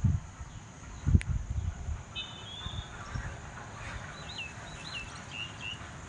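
Small birds calling over a steady hiss of rain: a short buzzy note, then a run of quick down-curving chirps. Low thumps at the start and about a second in are the loudest sounds.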